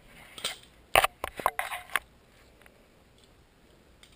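Bradley Kimura balisong (butterfly knife) flipped through an orbit and wrist pass: a quick run of sharp clicks and rattles as the handles and blade swing and knock together and are caught, then it goes still for the last two seconds.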